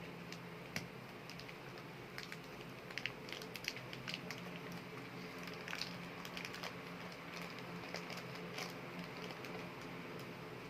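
Hands handling super-light air-dry clay and its packaging: scattered light clicks, taps and crinkles, busiest about two to four seconds in, over a steady low hum.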